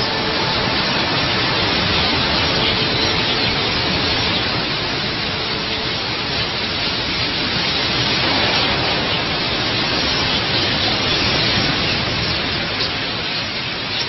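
A vast flock of red-billed queleas in flight, thousands of wingbeats and calls merging into a steady, dense rushing hiss.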